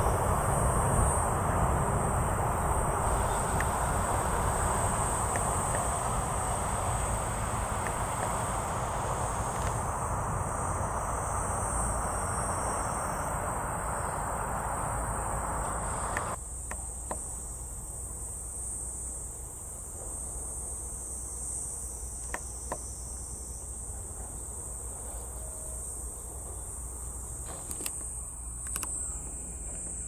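A freight train's rumble fades as it draws away and cuts off suddenly about halfway through. Insects keep up a steady high-pitched shrill in the grass throughout.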